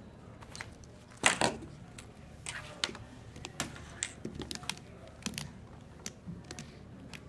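Plastic Rubik's-type puzzle cubes being handled and set down on a table mat: a run of light plastic clacks and taps, with a louder clatter about a second in.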